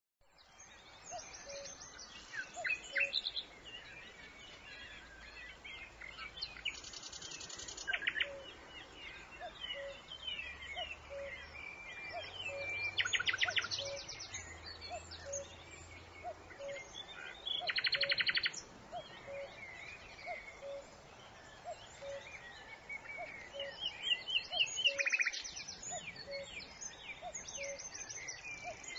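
Several wild birds chirping and singing together, with four loud, fast trills standing out. Beneath them, a short low note repeats about once a second.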